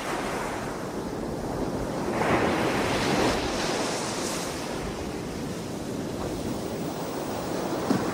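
Heavy surf on a rough, storm-tossed sea: waves breaking and washing in, with one wave breaking louder about two seconds in.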